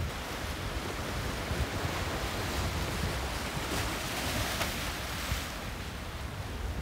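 Choppy inlet water rushing and breaking, a steady hiss of surf, with wind rumbling on the microphone.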